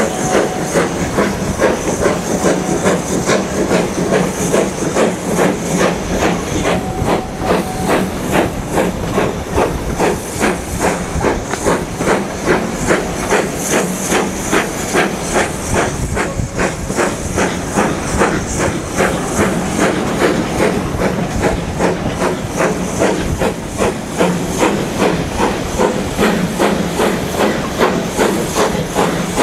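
BR Standard Class 2 steam locomotive working a train under steam, heard from a carriage window behind it: a quick, even rhythm of exhaust beats over a steady hiss of steam.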